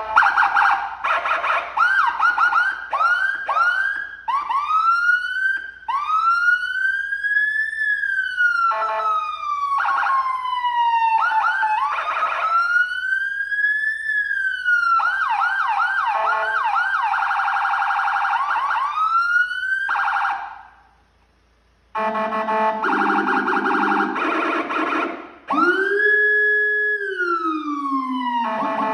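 Electronic siren from an HHS handheld siren controller through an STS USA 100 W speaker, cycling through tones. First come quick repeated rising sweeps, then a slow wail rising and falling, then a rapid warble. It cuts out for a moment about 20 seconds in, and comes back with a lower, rougher tone and another slow rising and falling sweep.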